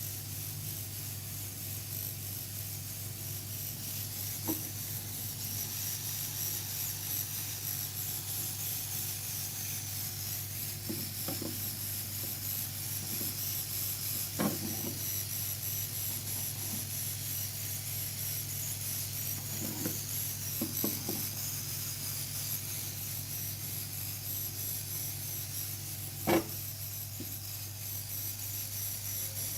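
Steady low hum and hiss, with a handful of light, isolated clicks and taps scattered through; the sharpest comes about four seconds before the end.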